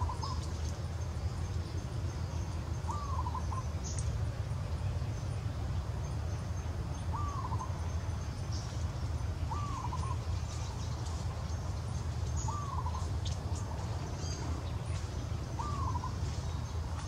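A bird repeating one short call, a curved note with a quick stutter after it, six times a few seconds apart, over a steady low rumble.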